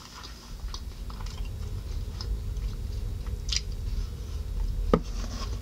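Close-miked chewing of a mouthful of scrambled eggs: soft, wet mouth sounds over a low rumble, with a couple of sharper clicks about three and a half and five seconds in.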